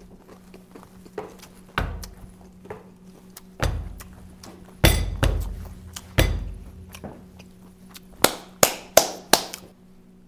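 Kitchen items knocking against a countertop: four heavy thuds a second or so apart, then four quick sharp clinks near the end.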